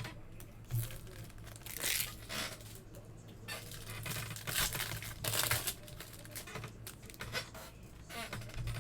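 Plastic wrapping and cardboard packaging of a trading card box being torn and crinkled open, in several short irregular rustling bursts over a steady low hum.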